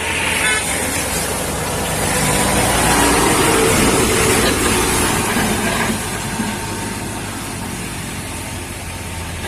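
Heavy diesel cargo truck labouring up a wet hill road, its engine a steady low drone. A broad hiss from the wet road swells in the middle as it comes past, then eases off.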